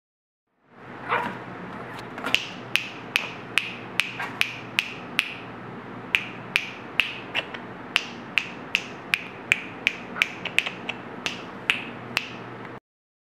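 Yorkshire terrier puppy yapping in short, sharp, high yaps, about two a second, with a brief pause midway, over a steady low hum.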